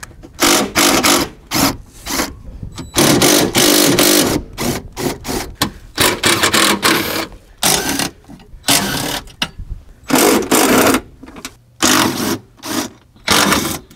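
Cordless power driver run in many short bursts of about a second or less, starting and stopping over and over, as bolts on the windshield wiper and cowl assembly are spun out.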